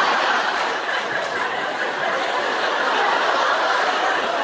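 Large theatre audience laughing loudly and steadily at a punchline, a dense wash of many voices.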